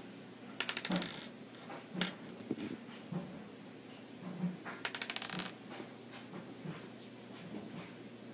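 A small plastic toy cup clattering and tapping on a wooden tabletop as a rosy-faced lovebird picks it up in its beak and handles it. There are two short, rapid rattles, one within the first second and one about five seconds in, and a single sharp tap about two seconds in, with soft light knocks between them.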